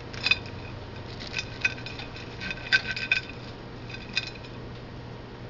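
Cutlery clinking against a plate, about a dozen short clinks that ring briefly, coming in small clusters.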